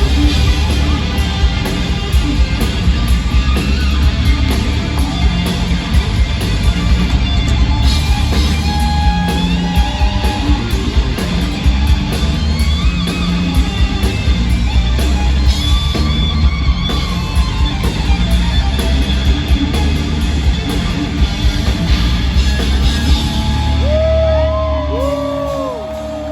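Live rock band playing an electric guitar solo, with heavy drums and bass underneath; the guitar plays bending, gliding notes near the end.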